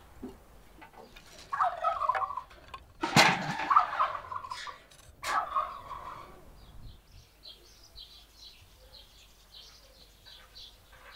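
Farmyard fowl calling three times in loud, wavering bursts between about two and six seconds in, followed by faint chirping of small birds.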